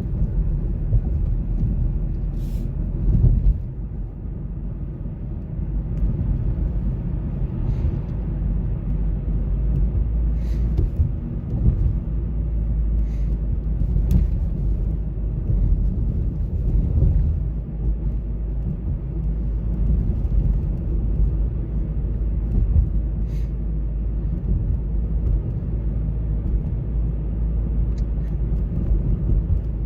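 Car driving: a steady low rumble of engine and road noise, with a few faint ticks now and then.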